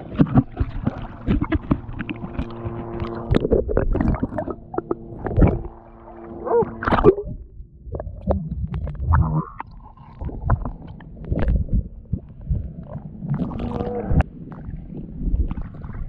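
Water sloshing and gurgling around a free diver's camera as he moves at the surface and dives underwater among kelp, with irregular splashy knocks. A steady low hum runs through the first half and stops about seven seconds in.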